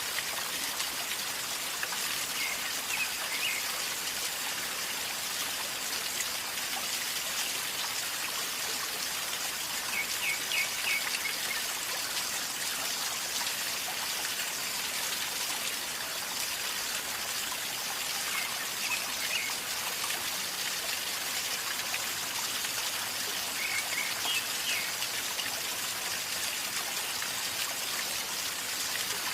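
River water flowing and gurgling steadily, a constant rushing hiss. Short bird chirps come through about five times.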